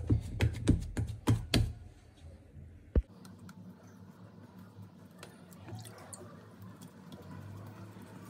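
Ragi (finger millet) dough worked by hand in a steel bowl: a quick run of soft knocks and slaps as the fist presses the dough against the bowl. About three seconds in there is one sharp knock, and after it faint soft patting and rustling as the dough is pressed flat on a plastic sheet over a steel plate.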